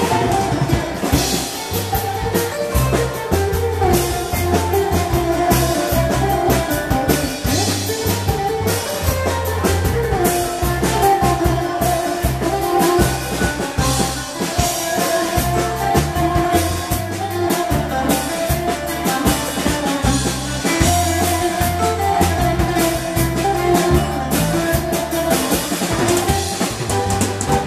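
Live Greek dance music from a band: a bouzouki melody over a drum kit keeping a steady beat.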